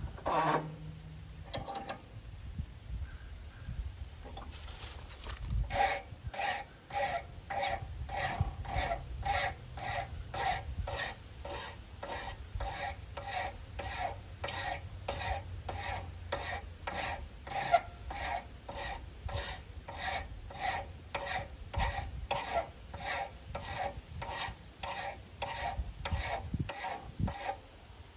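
Hand file rasping on a sawmill's scale pointer to trim it down to size, in steady even strokes about two a second, starting about five seconds in after a few handling knocks.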